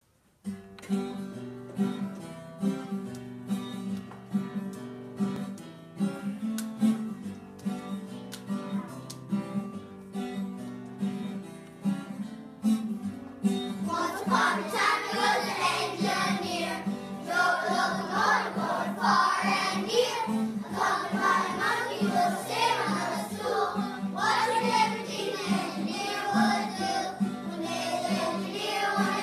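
A guitar plays a plucked and strummed introduction alone for about thirteen seconds, then a group of young children starts singing along with it.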